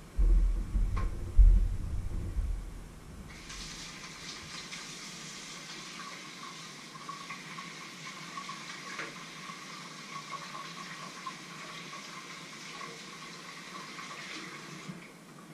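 A few heavy low thumps in the first two seconds, then a kitchen tap turned on, running steadily into the sink for about eleven seconds and shut off abruptly near the end.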